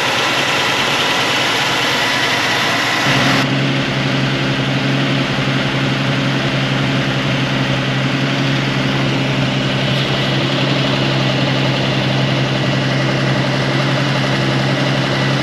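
AMC 258 straight-six idling at operating temperature, with its electric radiator cooling fan running: a steady rushing over the engine. About three seconds in, the high hiss drops away and a steady low hum carries on.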